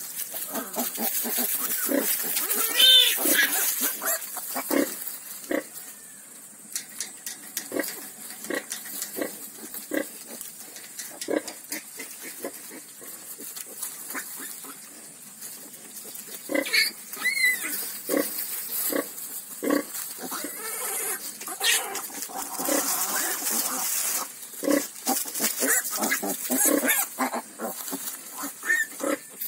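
A sow and her litter of nursing piglets grunting in short bursts throughout, with a high squeal about three seconds in and another around seventeen seconds.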